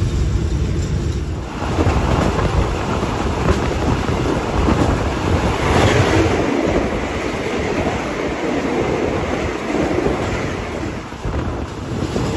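Running noise of a train heard from inside a third-class coach. About a second and a half in, the rush of an opposing passenger train (rapid train 167) passing close alongside on the other track joins it. The passing noise is loudest about six seconds in and eases off near the end.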